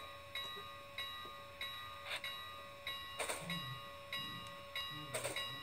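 Model steam locomotive's sound-system bell ringing steadily, about three strokes every two seconds, with a few short hisses and a low rumble coming in from about three and a half seconds as the locomotive approaches to couple.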